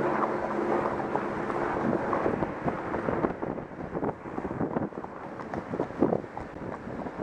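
A vehicle engine hums steadily, fading out over the first couple of seconds as it goes by. After that there is wind on the microphone and irregular clopping of horses' hooves on the road.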